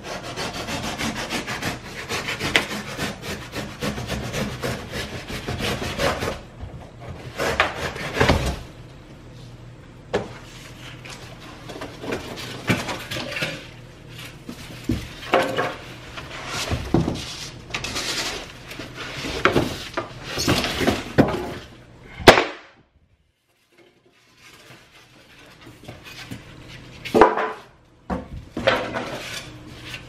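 A cardboard appliance box being sliced with a utility knife and torn and peeled away: a steady scraping rasp for the first several seconds, then separate scraping swipes and rustles. About three-quarters through there is one sharp click and a brief silence.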